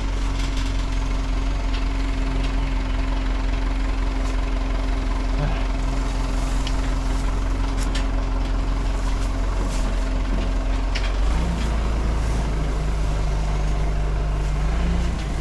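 Backhoe's diesel engine running steadily, its note shifting about eleven seconds in as the machine works a lifted load, with a few light metallic knocks.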